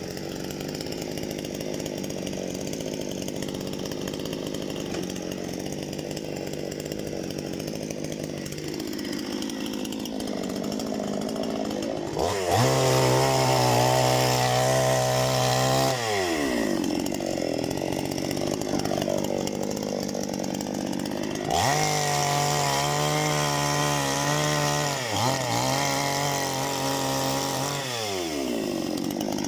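Parma BP-058 two-stroke chainsaw idling, then throttled up to full speed three times for a few seconds each while cutting firewood, the engine note falling back between cuts.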